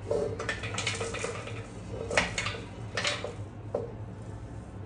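Kitchen dishes and utensils clinking and knocking as spice ingredients are tipped into a blender jar. A quick run of small clicks comes first, then louder single knocks about two and three seconds in, over a steady low hum.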